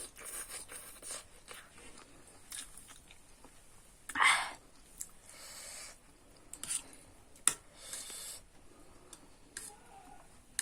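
A person eating instant noodles close to the microphone: chewing and slurping, with a few sharp clicks and breathy noises in between.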